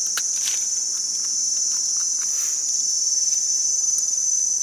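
A steady, high-pitched insect chorus drones without a break. A few faint ticks and rustles come near the start.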